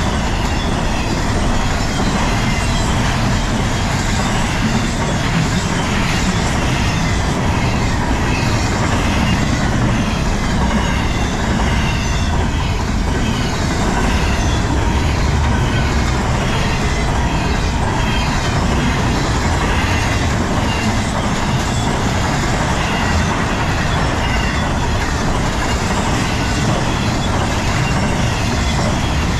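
BNSF freight train rolling past, a steady rumble of cars and wheels on the rails.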